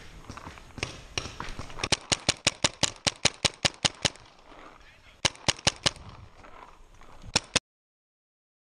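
Paintball marker firing: a rapid string of about fifteen sharp pops in two seconds, then a burst of three, then one more shot near the end. The sound cuts off suddenly after about seven and a half seconds.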